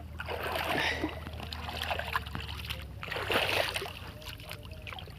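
Shallow water sloshing and splashing in two rushes, about half a second in and again about three seconds in, as a man wades and pushes the bamboo pole of a lift net through the water.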